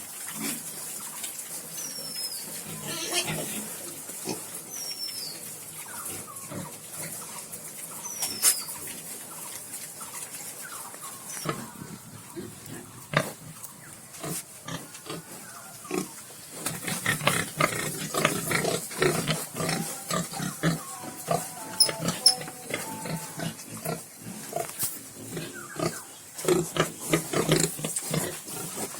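Large White Yorkshire piglets grunting, with scattered short calls and knocks, sparse at first and much busier from a little over halfway through.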